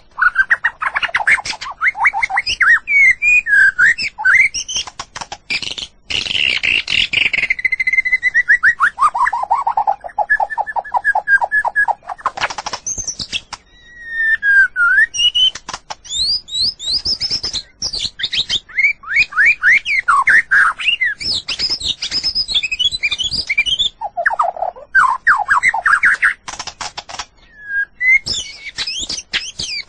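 White-rumped shama singing a long, varied song: fast series of repeated notes, rising and falling whistled phrases, and sharp clicking notes, with brief pauses between phrases.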